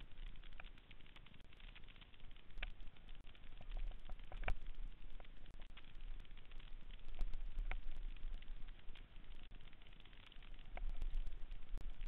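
Mountain bike ridden fast down a rough dirt singletrack, heard from a handlebar-mounted camera: tyres running over dirt and the bike rattling, with irregular sharp clicks and knocks over bumps, the sharpest about four and a half seconds in, over a low rumble.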